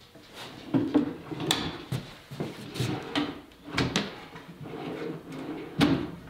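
A wooden cupboard drawer running on metal slide rails, slid in and out several times: the rolling rattle of the slides, broken by sharp knocks, the loudest just before 4 s and near 6 s.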